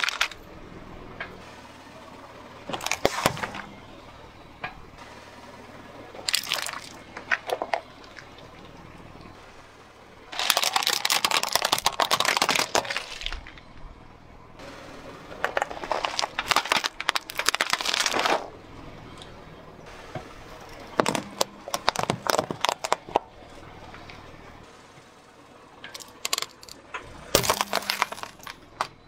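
Car tyre rolling over and crushing plastic toys and small objects: repeated cracking, crunching and snapping of breaking plastic. The sound comes as a series of separate crushings, some brief and some drawn out over a couple of seconds, with quieter gaps between them.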